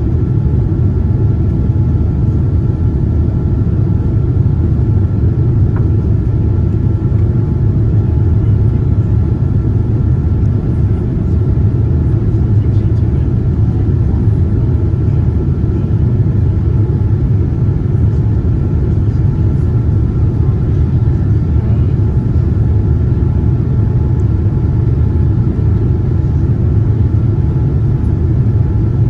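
Steady low rumble of a Boeing 787-9 airliner with its GEnx engines running, with faint steady high tones over it.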